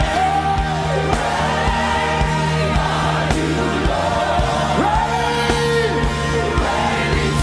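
Live gospel worship music: singing over a band, with held bass notes and a steady drum beat.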